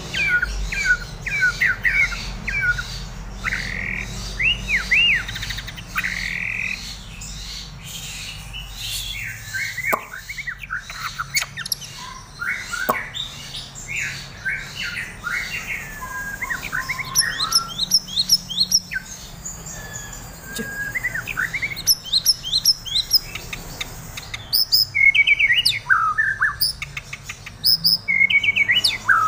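White-rumped shama singing a long, varied run of rapid chirps, whistles and trills. This is the song of a shama in over-breeding condition ('over birahi'), which the keeper puts down to too much extra live food given irregularly.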